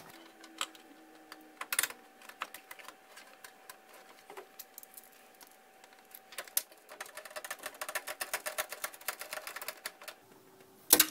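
A screwdriver driving a screw into the expansion-card bracket of a metal PC case: scattered small clicks and scrapes, then a rapid run of fine clicks lasting about three and a half seconds, and one loud click near the end.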